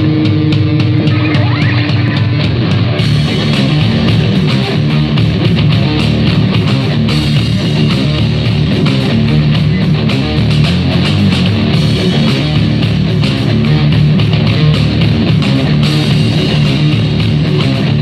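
Guitar-driven heavy rock music played on a Zoook Rocker Armor XL Bluetooth speaker during a sound test. It plays loud and steady, and turns brighter about three seconds in.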